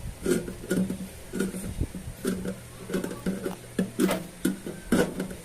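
Irregular series of short knocks and clicks as the microwave oven's metal cover and side pieces are handled and fitted back in place.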